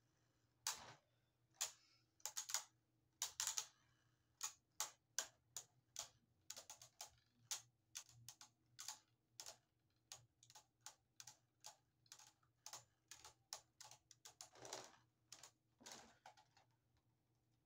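Beyblade Burst spinning tops clashing repeatedly in a plastic stadium: a string of sharp clicks, about three a second at the busiest, with a few louder hits among them.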